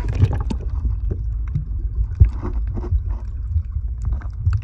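Underwater sound picked up by a phone sealed in a waterproof diving case: a muffled low rumble of moving water against the case, with scattered clicks and pops. The sharpest knock comes a little past two seconds in.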